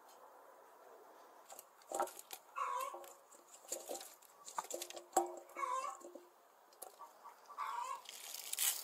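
Chunks of onion, carrot and lemon tipped from a stainless steel bowl knock and clatter into a steel stockpot of tripe, with two sharp knocks about two and five seconds in. A few short animal calls sound in the background, and a brief hiss near the end.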